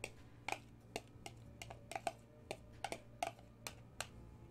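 Light, irregular clicks and taps, about three or four a second, as chopped boiled potatoes are scraped out of one bowl into a glass bowl, over a faint low hum.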